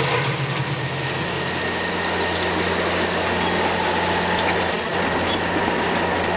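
Sliced onions and green chillies sizzling as they are tipped into a large pot of hot oil, over a steady mechanical hum and roar.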